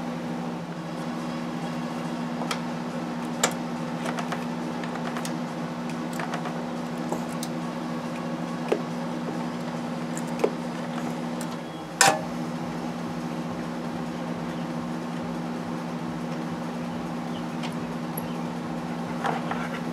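Steady low machine hum, with a few light clicks and knocks scattered through it; the sharpest click comes about twelve seconds in.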